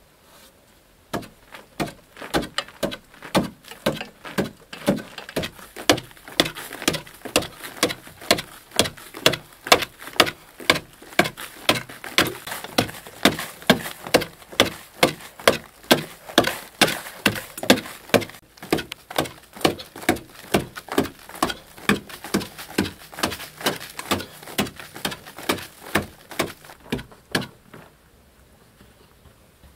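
A sharpened wooden digging stick hacking into a packed-earth wall, a steady run of sharp strikes about two a second, each knocking loose soil, stopping near the end.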